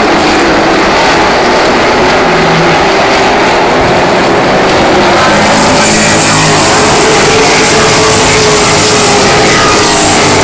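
A field of short-track Super Truck race trucks running at speed on the oval, engines revving and the pitch rising and falling as they pass. It grows brighter and harsher about six seconds in as one truck goes by close.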